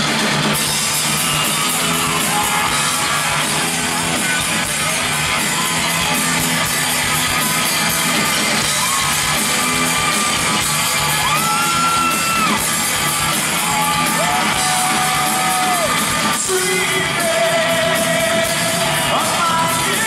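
Live rock band playing: electric guitar and drums under a male lead singer, who holds long notes about halfway through.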